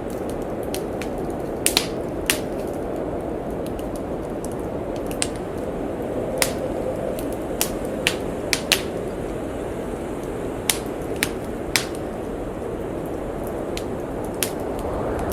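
Wood fire in a fireplace crackling, with irregular sharp pops and snaps, over a steady low rush of blizzard wind.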